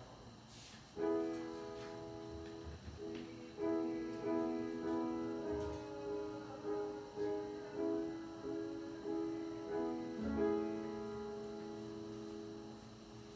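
Upright piano playing a short tune, chords struck roughly every half second from about a second in, ending on a held chord that fades away.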